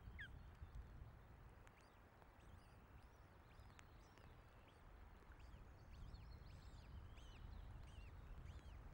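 Strong wind buffeting the nest-cam microphone as a steady low rumble, with faint high bird chirps, many short ones from about three seconds in.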